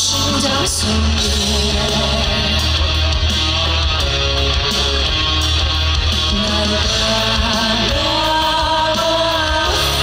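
A man singing a ballad live into a microphone over instrumental accompaniment with a steady low bass line, holding long sustained notes.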